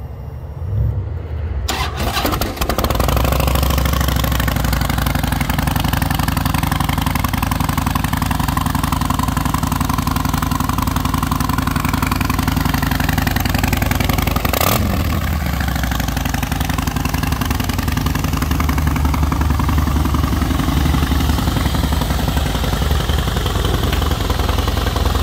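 Harley-Davidson Night Train's V-twin cranked by its electric starter, catching within about two seconds and settling into a steady idle through Vance & Hines aftermarket pipes.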